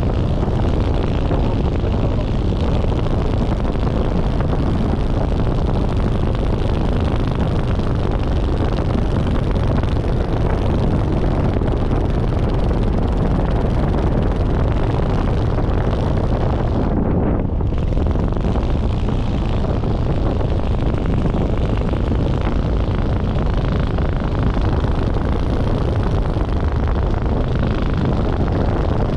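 Steady rush of airflow buffeting the microphone of a camera flying under a parachute canopy, loudest as a low rumble. The upper hiss dips out briefly about seventeen seconds in.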